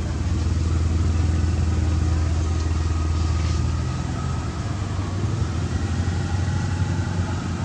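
A steady low engine hum, like a motor vehicle idling off-picture, easing slightly about four seconds in.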